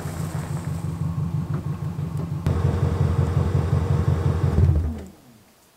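VW Vanagon Syncro van's engine running steadily at low speed, then switched off about five seconds in, its note sliding down as it winds to a stop.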